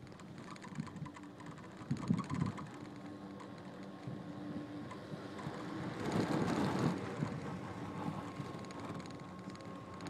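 Ride noise on a Doppelmayr detachable chairlift: the haul rope running with a steady faint hum and light clicking, a few knocks about two seconds in. Wind rushes on the microphone, swelling loudest around six seconds in.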